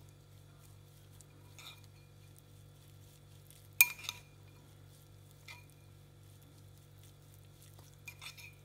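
A metal teaspoon stirring chopped dill and garlic in oil in a ceramic bowl: quiet mixing broken by a few sharp clinks of spoon against the bowl, the loudest about four seconds in and two more near the end, over a faint steady low hum.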